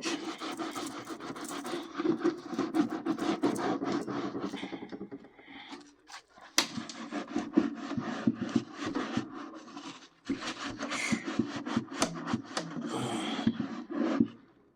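Rapid back-and-forth rubbing on the greasy inside wall of a toaster oven's metal cavity as the baked-on grease is wiped at, with short pauses about five and ten seconds in.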